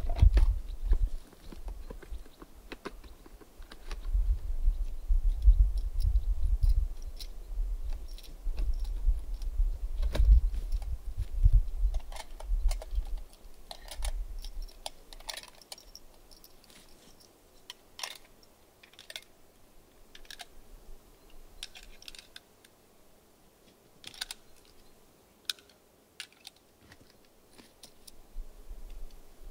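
Scattered light clicks and taps from handling the rifle and gear, over a low rumble that dies away about halfway through.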